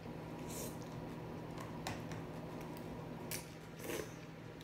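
Four short, hissy mouth sounds of a person eating very spicy noodles, over a low steady hum.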